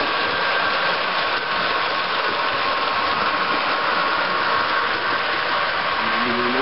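Model diesel locomotive with an ESU LokSound decoder, its small loudspeaker playing a steady diesel engine sound as the train runs, mixed with the running noise of the model train on the track.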